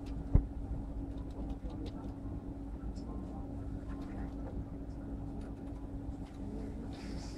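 A steady low hum with a constant drone-like tone, a sharp click just after it begins and faint scattered ticks.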